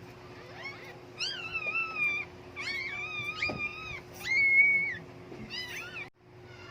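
A dog whining in a series of high-pitched whines, some sliding and some held; the longest and loudest is a level whine about four seconds in. The sound cuts off abruptly near the end.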